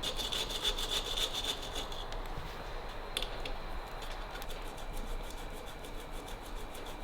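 Hand sanding of hardened body filler with 120-grit mesh sandpaper: quick, even back-and-forth rubbing strokes, with a single sharp tap about three seconds in.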